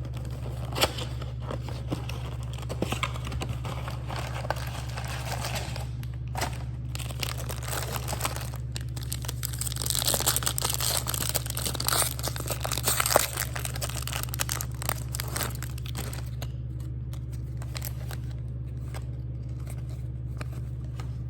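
Plastic wrapping on a Topps baseball card blaster box crinkling and tearing as the box is opened, with scattered clicks and rustles of packaging. The crinkling is loudest about halfway through. A steady low hum sits underneath.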